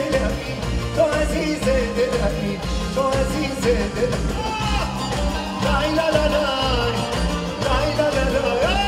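A live Persian pop band playing an upbeat song over a steady beat, with a male lead singer's voice carrying the melody.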